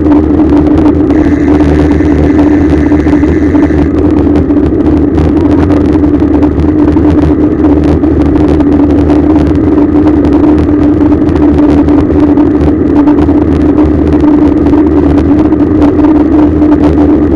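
Loud, steady rush and rumble of a road bicycle ride picked up by a bike-mounted camera: wind on the microphone and tyre noise, with a steady drone throughout. A faint higher whine joins for about three seconds near the start.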